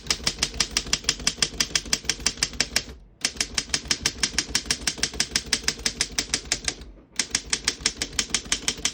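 1914 Underwood No. 3 manual typewriter being typed on: its typebars strike the platen in fast, even clicks, about ten a second. The clicks come in three runs with two short breaks.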